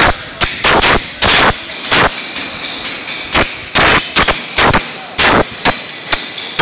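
Hand hammer striking a steel punch or chisel held on a steel plate on a metal bench: a dozen or so sharp metallic blows, about two a second, each with a brief ring.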